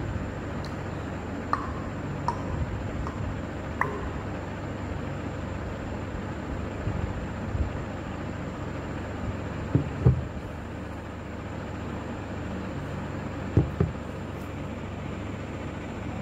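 Steady low background rumble with a few brief knocks, the loudest pair about ten seconds in and another pair a few seconds later.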